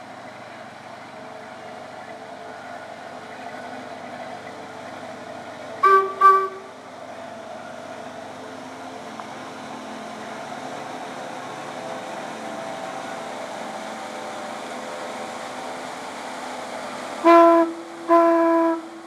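Sternwheel paddleboat's horn giving two short toots about six seconds in, then two longer, lower blasts near the end. Under them runs the steady churning of its paddlewheel and engine.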